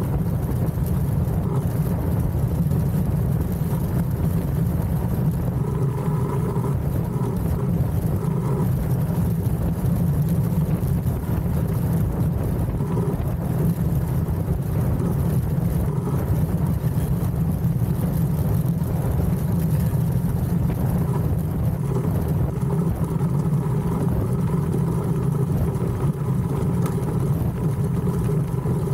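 DN-class iceboat sailing at speed: a steady low rumble of its runners on the ice mixed with wind noise.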